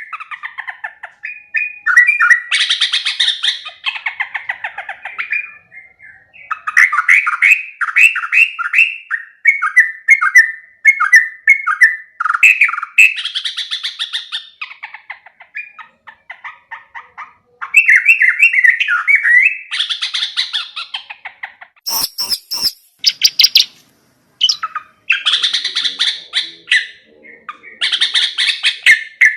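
Yellow-vented bulbul (trucuk) singing: repeated bursts of quick, bubbly chirping phrases with short pauses between them. A few sharp clicks come about two-thirds of the way through.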